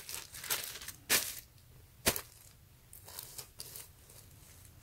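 Clear plastic poly bag crinkling and rustling as a folded cotton T-shirt is pulled out of it, with two sharp crackles about one and two seconds in, then only faint handling of the fabric.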